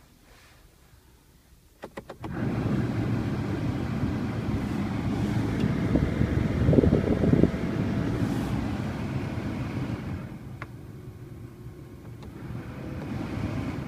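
Toyota Aygo cabin blower fan switched on with a few clicks of the control knob about two seconds in, then blowing air steadily. Its level changes as the fan speed is stepped: loudest around seven seconds, quieter from about ten seconds, and rising again near the end.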